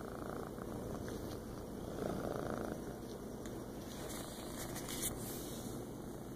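Long-haired tabby cat purring steadily while being stroked, heard close up. A short, louder rustle comes about two seconds in, and a small click comes near the end.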